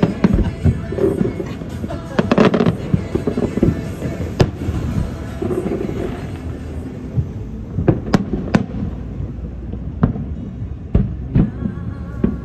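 Fireworks going off: a continuous low rumble broken by repeated sharp bangs and crackles, with a dense cluster about two seconds in and single loud reports around four, eight and eleven seconds in.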